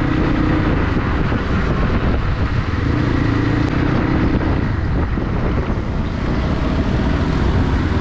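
Motor vehicle on the move, its engine running with a steady rumble and a faint tone that fades in and out.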